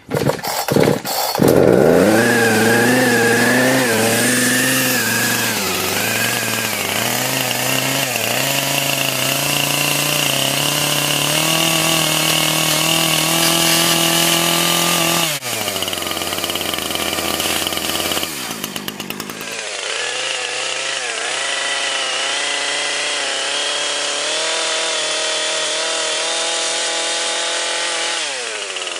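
Petrol chainsaw being started, with a few sharp knocks in the first second, then running at high revs with its pitch wavering. The revs drop at about 15 seconds, and from about 20 seconds it runs on at a lower, steadier speed.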